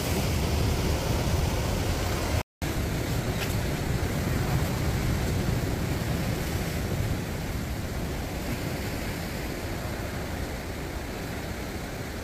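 Sea surf washing and breaking over the shore rocks as a steady rushing noise, broken by a brief moment of silence about two and a half seconds in.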